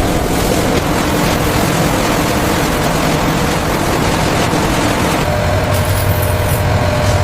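A large machine running with a loud, steady mechanical noise; about five seconds in, the low hum grows stronger and a faint steady tone comes in.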